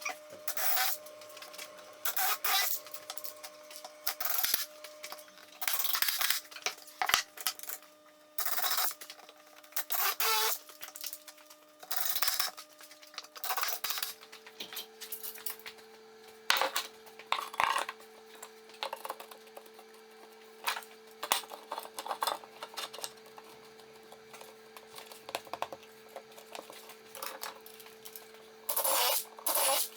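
Workshop work noises: short bursts of scraping and clattering, repeating every second or two, over faint steady low tones that drop in pitch about halfway through.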